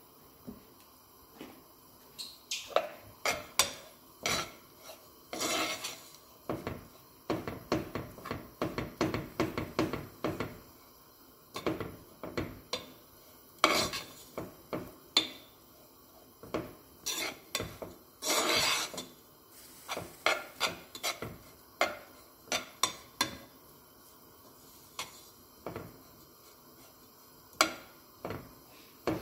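Metal spoon stirring ground walnuts frying in a little oil in a nonstick pot: irregular scrapes and clinks against the pot's bottom and sides, with a few longer scraping strokes.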